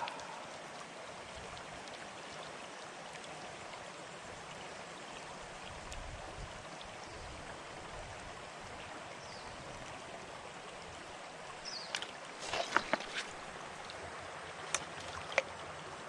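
Shallow stream flowing steadily over rocks and cobbles, with a few short, sharp clicks about three-quarters of the way through and one more near the end.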